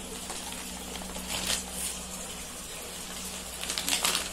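Clear plastic packaging bag crinkling and rustling as it is handled, in irregular flurries with the loudest near the end, over a faint steady low hum.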